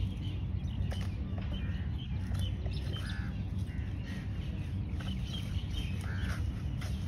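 Birds calling outdoors: scattered chirps and two short calls about three seconds apart, over a steady low rumble.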